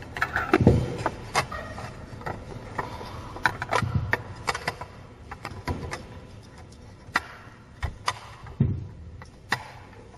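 Handling noise from a shower-cabin roof panel being turned and worked on by hand: scattered clicks, taps and rattles, with about three heavier thumps.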